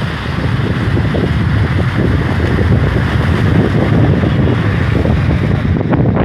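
Heavy rain with wind buffeting the microphone: a loud, steady rush with a deep rumble underneath.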